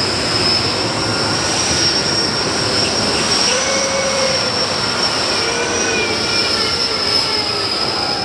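Heavy modified pulling tractor running at full power during a pull, a loud engine noise with a high steady whine over it.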